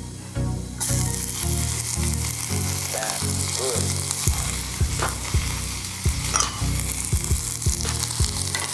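Chopped onions frying in hot oil with cumin seeds and garlic in a small steel saucepan, a loud steady sizzle. The sizzle jumps up suddenly just under a second in as the onions hit the oil.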